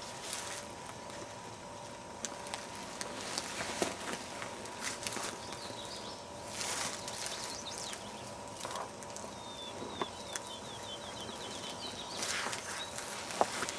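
Outdoor ambience: a bird chirping in a quick run of short, evenly repeated notes a little past halfway, with scattered clicks and rustles of handling or movement close by and a faint steady hum.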